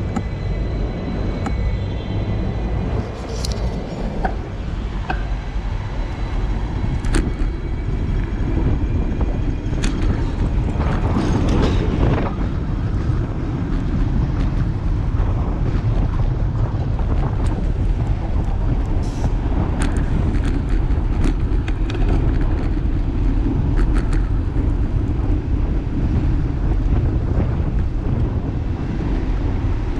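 Wind buffeting a handlebar-mounted action camera on a moving road bike, heavy and low, with road rumble underneath and scattered sharp ticks and rattles.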